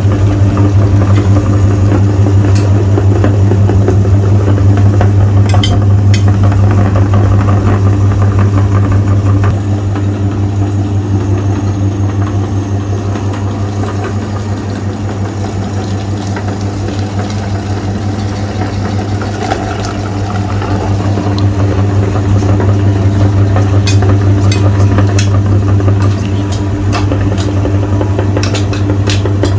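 Electric meat grinder motor running steadily with a strong low hum, with scattered sharp clicks, most of them near the end.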